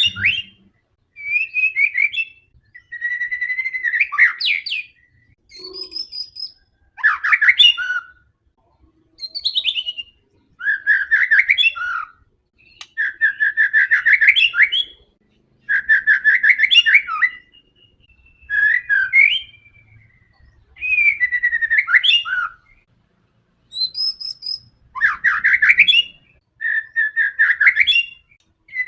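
White-rumped shama (murai batu) in full song, delivering varied phrases of rapid repeated notes, trills and whistles in bursts of one to two seconds with short pauses between them.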